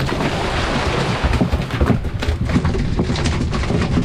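Wind buffeting the microphone with a heavy, uneven low rumble, over the hiss and splash of water rushing past a boat under way.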